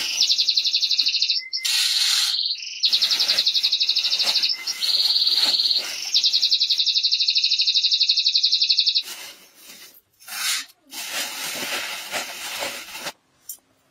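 A small animal chirping in a rapid, high-pitched trill of evenly spaced pulses, in several stretches of one to three seconds. It stops about nine seconds in, and softer rustling and clatter follow.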